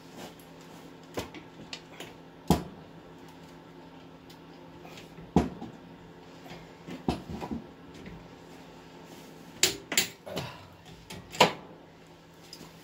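Click-type torque wrench on a wheel bearing hub's mounting bolts: a handful of sharp metallic clicks, irregularly spaced, as each bolt reaches its preset torque spec.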